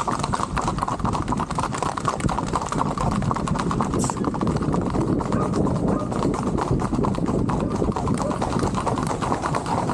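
Several shod horses' hooves on asphalt, rapid overlapping hoofbeats from a group moving at a brisk gait.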